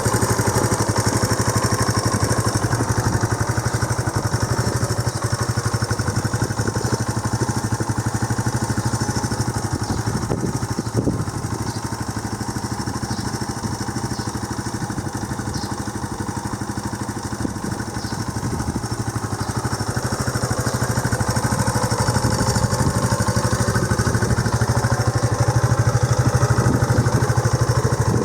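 Honda CB125JX single-cylinder four-stroke engine idling steadily, a little quieter in the middle and picking up slightly near the end. It is the first run after the crank and crank bearing were replaced, and it runs without the abnormal noise the worn crank bearing had made.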